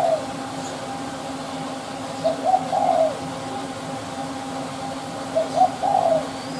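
Spotted dove cooing: a short multi-note coo phrase repeated about every three seconds. A steady faint hum runs underneath.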